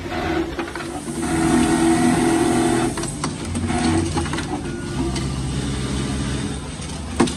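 QURIS automatic label sewing machine running: a steady motor hum with a pitched drone and irregular mechanical clicks, and one sharp clack near the end.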